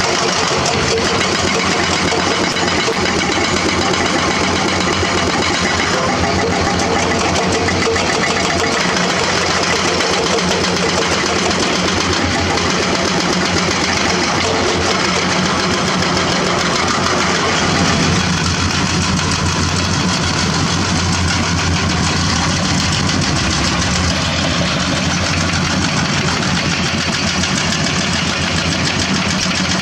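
Diesel engines of heavy earthmoving machines (hydraulic crawler excavators and a crawler bulldozer) running steadily under load. About eighteen seconds in the sound shifts to a deeper engine note.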